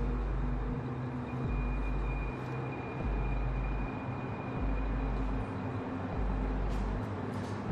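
A deep rumble that throbs on and off about every second and a half, under a steady hiss and a faint high whine.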